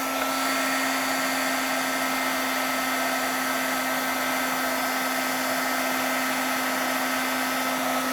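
Heat embossing gun running steadily, a fan hum with a higher whine over a rush of air, blowing hot air to melt clear embossing powder on a metal rim tag.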